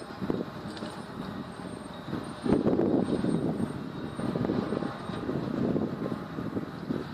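Hand-held gas heating torch burning with a rushing noise as it heats a pipeline joint, softening the coating and activating the adhesive of a heat-shrink poly sleeve. The rush grows louder about two and a half seconds in and wavers from then on.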